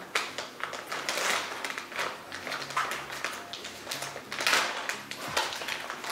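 Plastic bag of frozen fish crinkling and rustling in irregular bursts as it is opened and handled.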